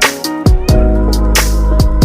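Background music: an upbeat instrumental with a steady drum beat, kick drums and hi-hat.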